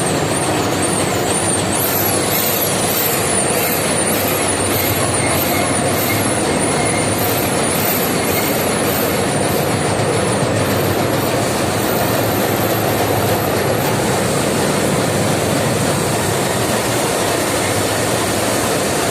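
Electric injection grouting pump running steadily, a loud even mechanical noise with a faint high whine that rises and drops over and over, about one and a half times a second, then holds one high pitch briefly.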